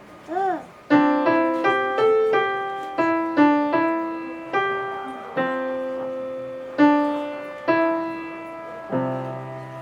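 Solo piano playing a short children's piece: a series of single notes and small chords, ending about nine seconds in on a low chord that is left to ring. About half a second in, a brief sliding tone rises and falls before the piano notes begin.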